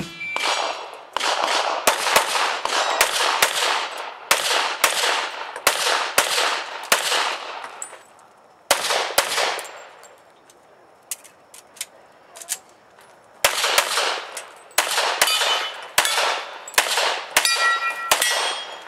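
Handgun firing rapid strings of shots, about two or three a second, each with a short echo, broken by a pause of about three seconds with only faint clicks. Several hits near the end leave a brief metallic ring as bullets strike steel pepper poppers and plates.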